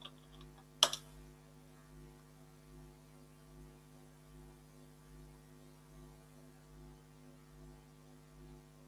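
A single sharp computer keyboard key click about a second in, the Enter key confirming the typed sudo password, followed by a faint steady electrical hum.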